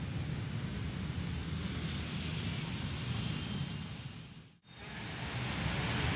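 Steady outdoor street noise, mostly a low rumble of traffic and wind. It drops out for a moment about four and a half seconds in, then resumes.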